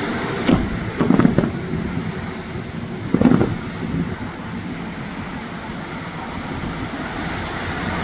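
Fireworks going off: several deep booms in the first three and a half seconds, a cluster of them about a second in, over a steady rushing background noise.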